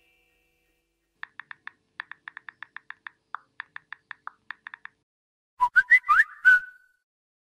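Smartphone keyboard tap clicks, a quick irregular run of short ticks for about four seconds, then a short chirping message alert with quick rising and falling pitches.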